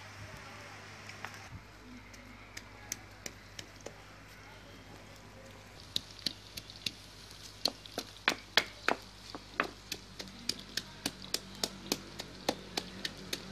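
Stone pestle pounding in a small stone mortar: a few scattered clicks at first, then from about halfway a quick, irregular run of sharp knocks, several a second.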